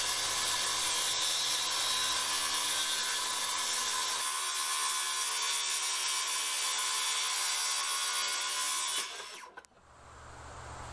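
Circular saw ripping lengthwise through an LP SmartSide engineered-wood lap siding board, a steady motor whine with the noise of the cut. It stops about nine seconds in.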